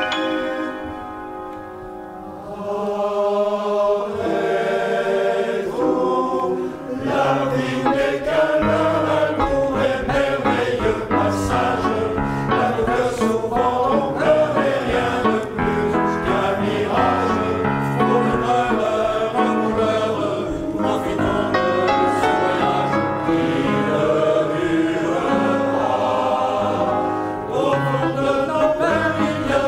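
Men's choir singing a traditional Russian song in harmony: long held chords at first, softer for a second or two, then a livelier rhythmic passage from about six seconds in.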